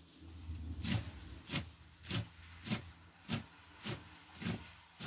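Kitchen knife chopping beetroot: about eight even, sharp chops, a little under two a second, starting about a second in.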